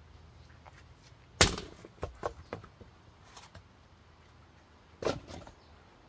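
Two sharp axe strikes splitting firewood, about three and a half seconds apart. The first is followed by a few lighter wooden knocks.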